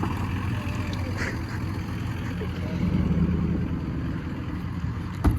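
Steady low rumble of a vehicle engine running, with one sharp knock near the end.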